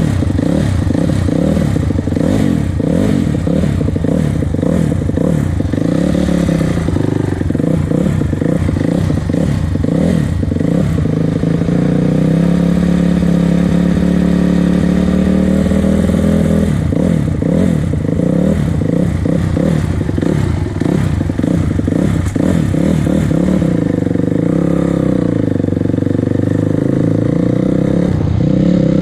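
Honda CRF250R's single-cylinder four-stroke dirt bike engine being ridden, its revs rising and falling with the throttle. About midway the pitch holds steady for a few seconds, then the revs dip and pick up again.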